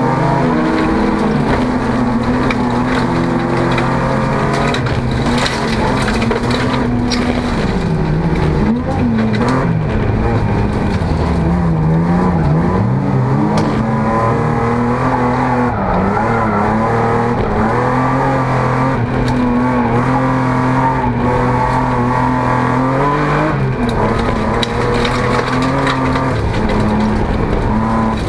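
Folk race car's engine working hard, heard from inside the stripped cabin, its pitch climbing and falling again and again as the driver accelerates, lifts and shifts through the gears. Tyre and gravel noise runs underneath, with scattered sharp clicks.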